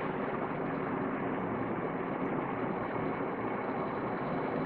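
Steady background hum and hiss, even and unchanging in level.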